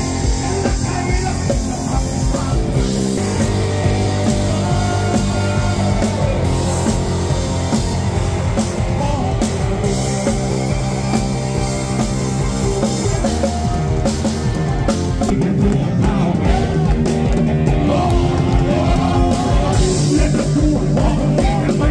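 Loud rock music playing.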